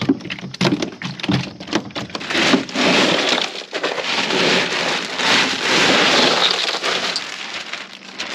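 Bagged ice poured from a plastic bag into a plastic Igloo cooler over fish, the cubes clattering and rattling into the chest for several seconds. A few knocks come first as the fish are laid in.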